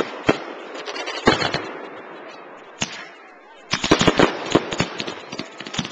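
Aerial fireworks shells bursting with sharp bangs and crackle. After a short lull about three and a half seconds in, a rapid volley of bangs follows.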